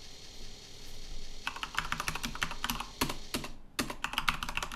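Typing on a computer keyboard: a quick run of keystrokes starting about one and a half seconds in, with a brief pause a little past the middle.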